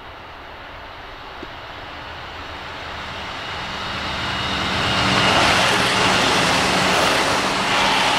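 Berlin S-Bahn class 480 electric multiple unit approaching and passing close by, growing steadily louder until it draws level about five seconds in. A steady electric hum and a high whine from its traction equipment sit over the wheel and rail rolling noise.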